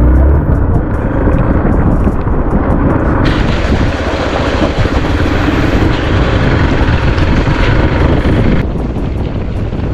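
Motorcycle engine running under way, with wind buffeting the microphone; the sound changes suddenly about three seconds in and again near the end.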